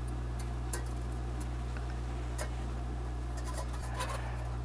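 Light clinks and taps of a metal ladle and stainless pot as soup is handled, with a small cluster of metallic knocks about four seconds in as the pot is set back on the cassette gas stove, over a steady low hum.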